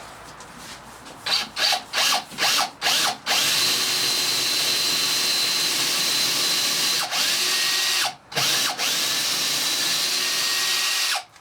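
Power drill with a 13 mm metal-drilling bit boring a hole into a wooden door frame. It gives several short trigger bursts, then runs steadily with a high whine, stops briefly about eight seconds in, and runs again until it cuts off near the end.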